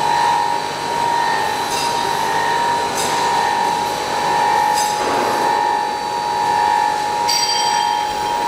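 Twin-screw blown film machine running: a steady high machine whine over a noise bed, with a few short sharp clicks.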